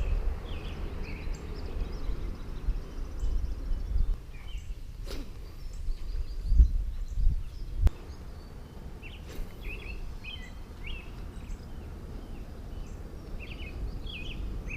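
Small birds chirping in short, scattered calls over a steady low rumble, with a few sharp clicks partway through.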